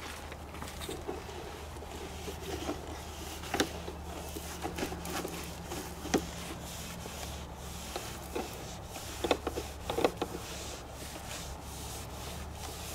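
Long-handled scrub brush rubbing across vinyl siding, bristles scraping over the laps with a few sharper scrapes and knocks around four, six and ten seconds in. A steady low hum runs underneath.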